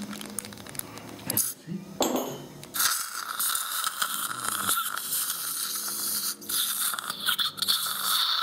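Dental surgical drill spinning up about two seconds in, then running with a steady high whine as it cuts through an impacted lower wisdom tooth.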